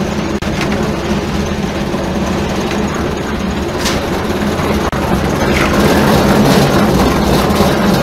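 Concrete mixer's engine running steadily, with a shovel scraping and rattling through wet concrete and gravel from about five seconds in.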